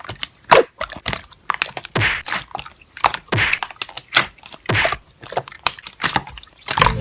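Slime being pressed and poked, giving a quick run of sharp clicks and crackles with a few short squishy swells in between.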